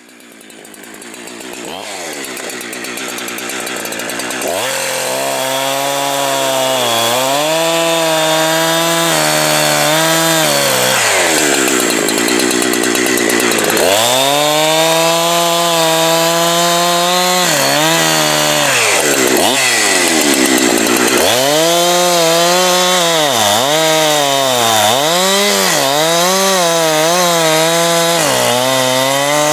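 Two-stroke chainsaw running, its engine note rising and falling again and again as the throttle is blipped, with two longer high-revving stretches. The sound comes in from silence over the first few seconds.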